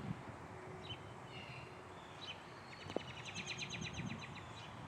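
A small bird calling: a few short high chirps, then a rapid trill of evenly spaced notes lasting about a second and a half. Outdoor background hiss lies under it, with a single faint click about three seconds in.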